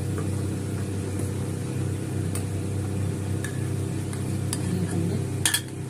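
Masala in a frying pan sizzling gently as a yogurt-and-cream paste is stirred in with a spatula, with a few sharp clicks of spoon and spatula against the pan and bowl. A steady low hum runs underneath.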